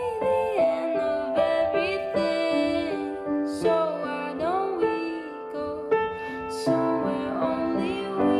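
Background music: a song with a singing voice gliding over held piano notes.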